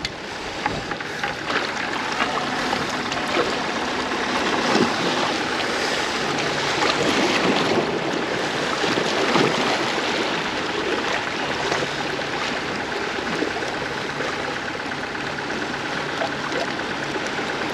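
Steady wash of water against a seawall, with a faint low hum underneath.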